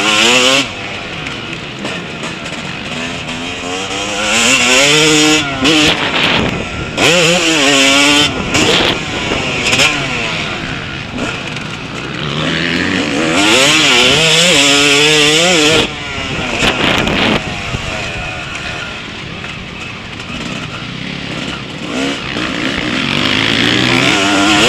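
Yamaha motocross bike's engine, heard from a camera mounted on the bike, revving up and down over and over as the rider opens and closes the throttle around the track, with several long rising pulls.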